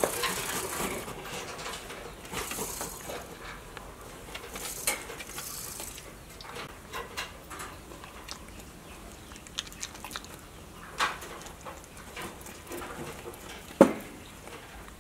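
Crested porcupine chewing and gnawing food: irregular crunching clicks and rustling, with one sharper, louder click near the end.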